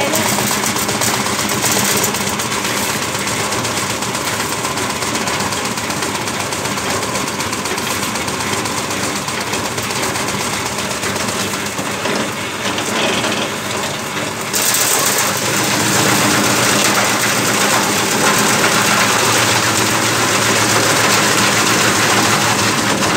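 Paras chaff cutter, a flywheel machine driven by a 3 HP single-phase electric motor, running and chopping hand-fed dry fodder stalks: a steady hum under a continuous crunching clatter of the blades cutting. The cutting grows louder and sharper about two-thirds of the way in.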